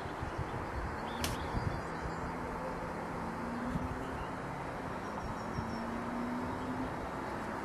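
Open-air outdoor ambience: a steady rushing noise with a gusty low rumble, and a faint, slowly rising drone of a distant engine. A short, sharp high sound comes about a second in.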